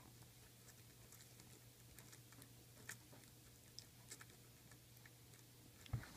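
Near silence: a steady low hum with scattered faint, irregular small clicks, and a soft bump about six seconds in.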